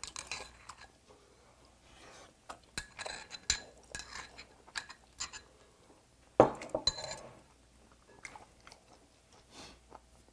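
Eating sounds: chewing and slurping braised dried pollack, with a metal spoon and chopsticks clinking against a small ceramic bowl and the pot in scattered short clicks. The loudest is one sharp sound about six and a half seconds in.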